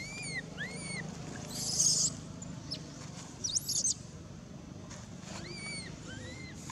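Baby macaque crying: repeated short, arched whimpering calls, a few sharp rising squeals in the middle, and one loud harsh burst about two seconds in.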